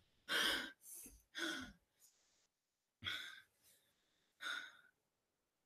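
A boy's short breathy sighs and gasps, about five of them spaced a second or so apart, with dead silence between them.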